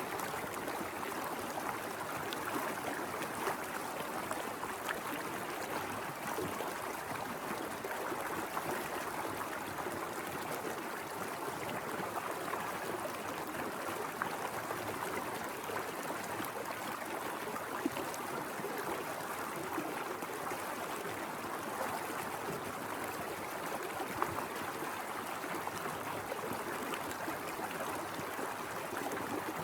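Small mountain river flowing steadily, a constant rush of running water with a few brief splashes standing out.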